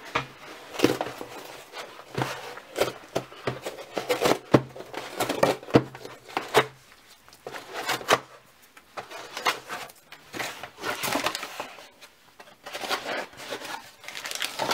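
Packaging being pulled and torn open by hand: an irregular run of sharp cracks, rips and crinkling rustles.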